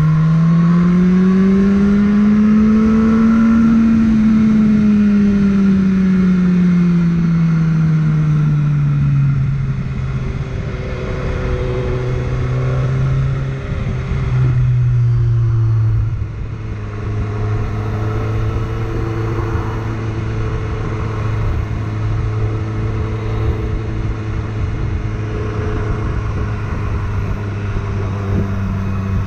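BMW S1000R's inline-four engine under way: its pitch climbs over the first few seconds as it revs up, eases back down, then drops again about halfway through and holds a steady lower note while cruising, over a steady rush of wind.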